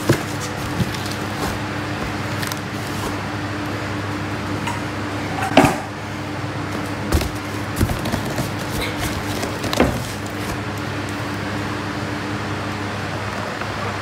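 Cardboard grocery box being handled open: a few short knocks and crinkly rustles of the flaps and plastic wrap, the loudest about five and a half seconds in, over a steady background hum.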